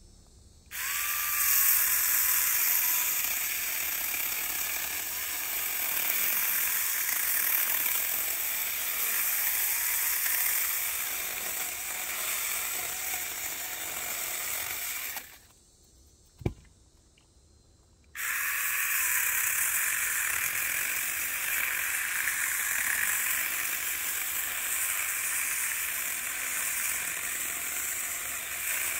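Small 20-volt cordless mini chainsaw running, its chain cutting through pine branches. It stops for about three seconds midway, with a single click in the pause, then starts again and cuts on.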